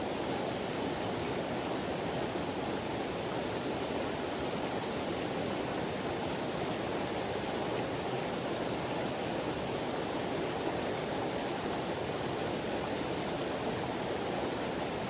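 River water rushing over rocks and a small cascade: a steady, even rush that does not change.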